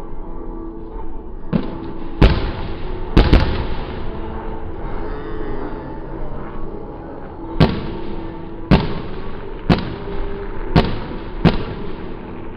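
Aerial firework shells bursting overhead: about nine sharp bangs, a cluster of four in the first few seconds, then a pause of about four seconds, then a bang roughly every second.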